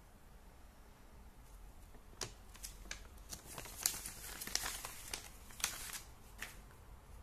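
Paper instruction sheet rustling and crinkling as it is folded and handled, a run of short sharp crackles starting about two seconds in.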